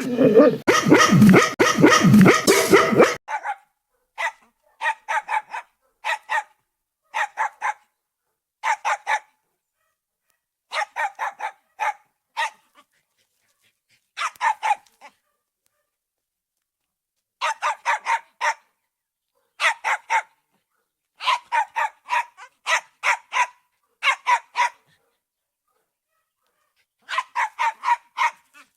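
Street dogs barking: a dense, loud tangle of barks for the first few seconds, then quick bursts of three to six sharp barks at a time with silent gaps between them.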